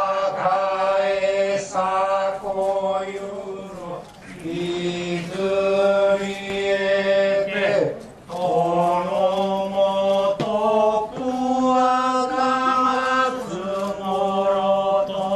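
Noh chanting (utai): voices intoning in long held, wavering tones, in phrases that break for breath every few seconds.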